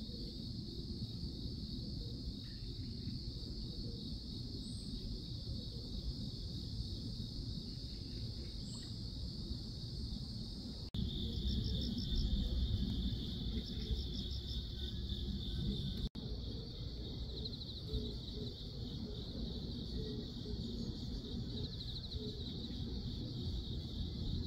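Crickets chirring steadily in one high, continuous band, with rapid pulsed trills from about eleven to sixteen seconds in. A low rumble runs underneath, and the sound drops out briefly twice.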